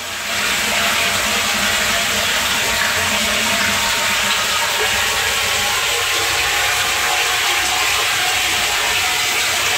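Water pouring steadily into a closed tank from the mains supply inlet: a constant rushing hiss of the incoming stream.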